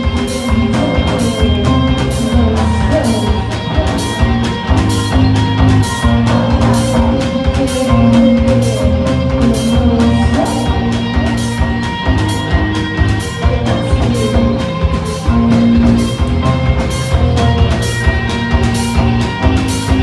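A rock band playing live: electric guitars over a drum kit, with sustained low guitar notes and a steady, even beat of drum and cymbal hits.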